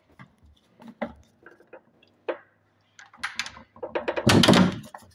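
An apartment entrance door and its lock being handled: scattered clicks and knocks, then a louder thump about four seconds in.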